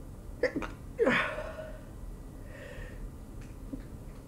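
A woman sneezes into her hand about a second in, after two short catching breaths.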